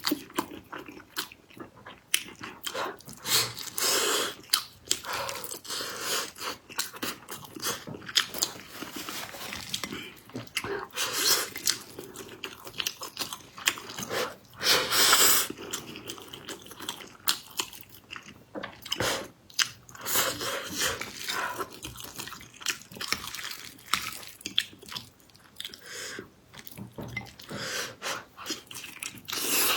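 Close-up eating sounds: a person biting and chewing soft, sticky, sweet food, with frequent wet mouth clicks and a few louder, longer noisy bursts.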